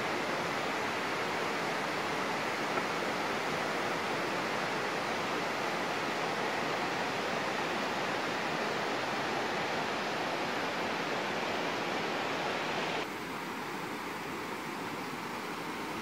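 Waterfall cascading over rocks: a steady rush of falling water. About 13 seconds in it cuts abruptly to a somewhat quieter, duller rush.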